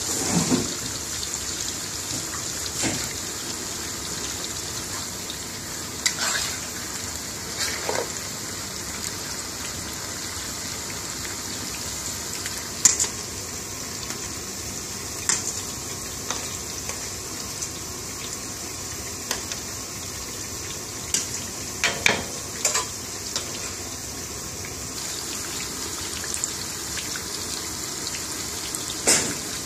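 Onion bhajis deep-frying in hot oil: a steady high sizzle, with a few short sharp knocks now and then.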